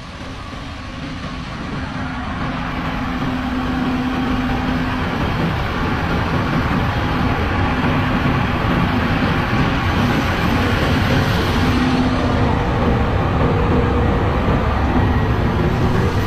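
John Deere S790 combine harvester running while harvesting corn: a steady machine drone with a low hum, swelling over the first few seconds and then holding level.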